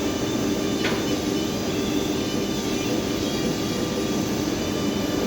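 Steady hum of machinery running in a hydraulics machine shop, holding several steady tones, with one short sharp clink about a second in.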